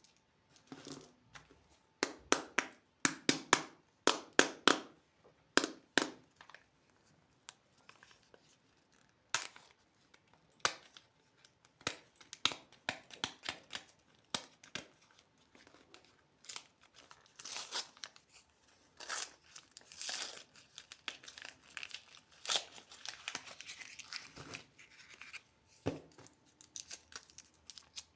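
Candy packaging being crinkled and torn open by hand, in irregular crackly bursts, loudest in the first few seconds.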